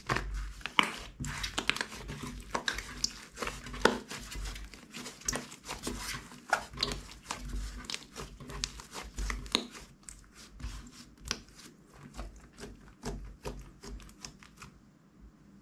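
Thick red slime being kneaded, stretched and squeezed by hand: a busy run of sticky squishes with many small clicks and pops and soft low thumps, growing sparser near the end.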